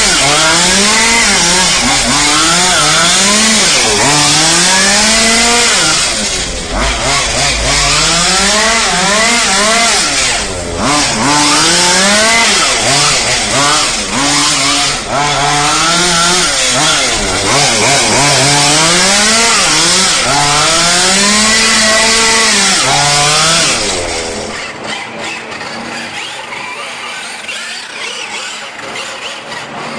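Small two-stroke petrol engine of a 1/5-scale RC car revving up and down over and over as it is driven round cones, the pitch climbing and falling every second or two. Near the end the engine sound gives way to a quieter, hissy background.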